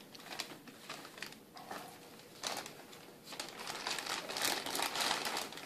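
Clear plastic bag liner crinkling and rustling as hands reach into it, in irregular rustles that get busier in the second half.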